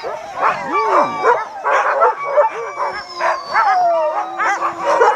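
A yard of sled dogs barking, yipping and howling all at once, many overlapping calls with a few drawn-out howls: the excited clamour of dogs eager to run.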